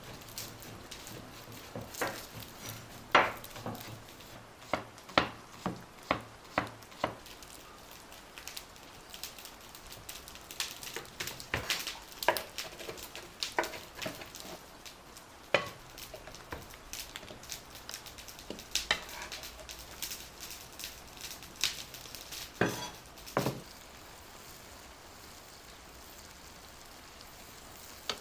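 Food sizzling in a pan under scattered sharp clicks and knocks of utensils against pans and dishes. The knocks stop about 23 seconds in, leaving only the steady hiss.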